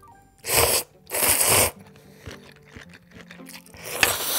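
Instant ramyeon noodles slurped from the bowl in three loud, quick slurps: one about half a second in, a longer one right after, and a third near the end.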